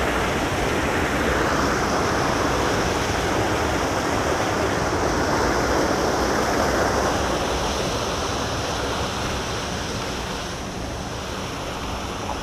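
Floodwater rushing steadily through a brick drain opening in a storm-swollen creek, a little quieter from about ten seconds in.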